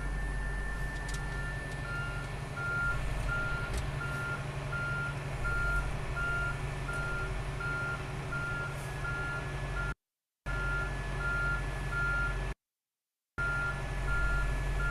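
Reversing beeper of an Oshkosh M1120A2 HEMTT 8x8 hook-lift truck, sounding a steady high beep about twice a second, over the low running of its diesel engine as the truck backs up. The sound cuts out twice for a moment.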